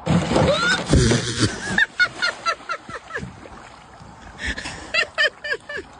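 A person laughing in two runs of quick, repeated ha-ha bursts, about four a second. The first run starts about two seconds in and the second comes near the end, after a noisy first couple of seconds.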